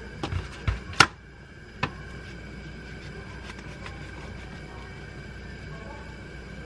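A small knife working on a pomegranate: a few soft knocks and a sharp click about a second in as the crown is cut away, then faint ticks of the blade scoring the rind, over a steady low room hum.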